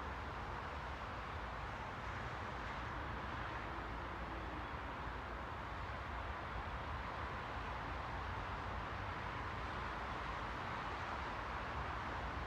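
Steady, unchanging white-noise hiss with a low rumble underneath.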